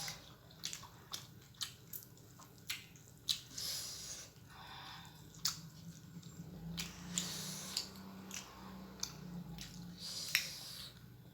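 Close-miked eating: chewing and bites of unripe mango, with many sharp wet mouth clicks and a few short hissy slurps or crunches.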